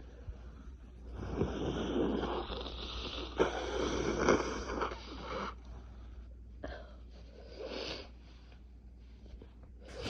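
A congested, cold-blocked nose blown hard and wetly into a tissue for several seconds, in a few strong pushes. A few shorter sniffles follow.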